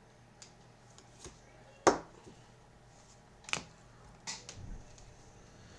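Trading cards being handled and set down: a few short sharp clicks and taps, the loudest about two seconds in.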